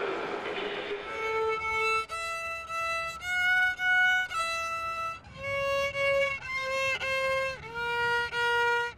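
A child playing a slow, simple tune on a violin: long bowed notes one after another, stepping up and back down in pitch, starting about a second in.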